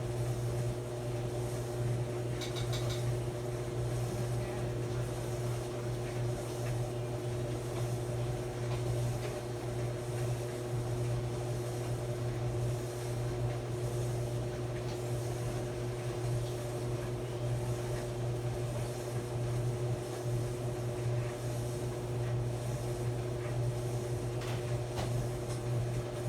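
Maytag clothes dryer running: a steady motor hum with a low drone and a few steady tones above it, and faint brief ticks about two and a half seconds in.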